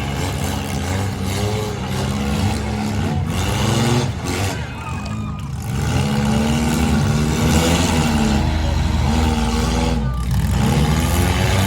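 Four-cylinder demolition derby cars' engines running and revving unevenly, their pitch rising and falling, with more than one engine heard at once.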